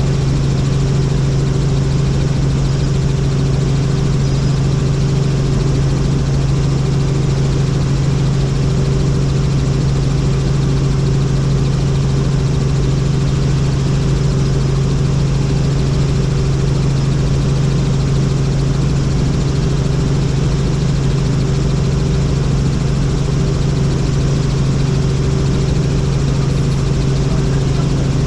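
Helicopter's engine and rotors running, a loud, unchanging drone with a strong low hum.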